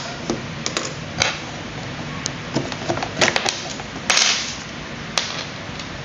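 Sharp plastic clicks and knocks as a rocker power switch is pried out of an Imarflex coffee maker's plastic base with a small metal tool, with a longer scrape about four seconds in.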